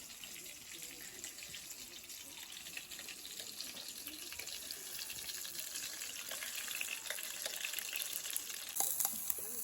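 Shrimp deep-frying in hot oil: a steady sizzle with fine crackling, growing louder toward the end.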